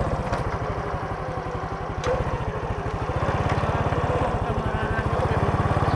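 Motorbike engine running as it is ridden at a steady pace, its exhaust pulsing evenly and growing a little louder about halfway through.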